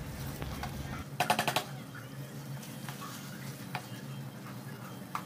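Spatula stirring and scraping thick chicken curry in a non-stick kadai: a short rattling scrape about a second in, then a few lighter scrapes and taps, over a low steady hum.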